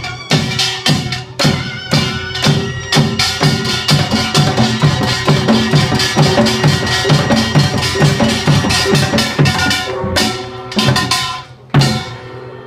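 Samulnori ensemble of Korean gongs and drums, including a buk barrel drum, playing a fast, dense rhythm with the gongs ringing over the drumbeats. Near the end the rhythm breaks into a few spaced, heavy strikes to close the piece.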